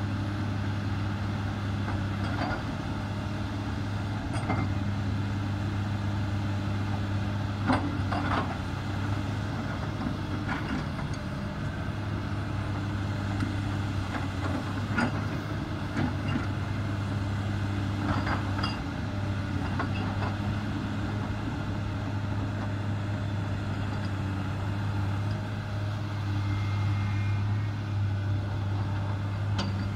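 Komatsu PC300 hydraulic excavator's diesel engine running steadily under working load as it digs and dumps earth, with several sharp knocks of the bucket against soil and rock scattered through.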